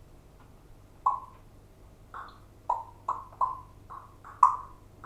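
A pet bird giving a series of short, sharp calls, about eight in irregular succession, starting about a second in.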